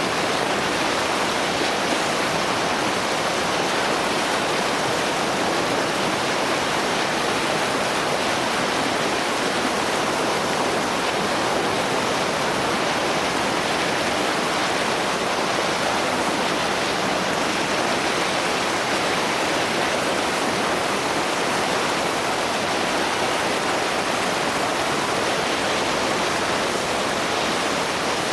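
Rushing water of the River Nile's rapids at a waterfall: a steady, dense roar with no letup.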